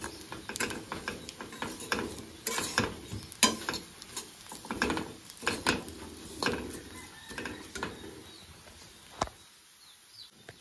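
Metal spatula scraping and stirring rice grains in a metal wok, in irregular strokes with clicks of the blade on the pan. The strokes thin out and grow quieter near the end.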